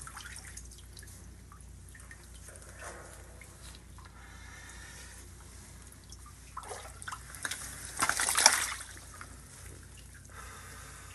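Water trickling and dripping in a flooded cave, with a brief louder noise about eight seconds in.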